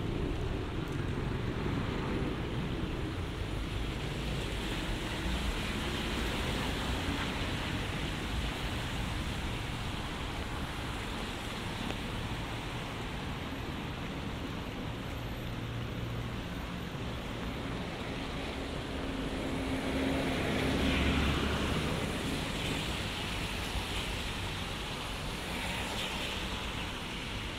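City street traffic on wet roads: a steady hiss of tyres and engines, with one vehicle passing louder about twenty seconds in.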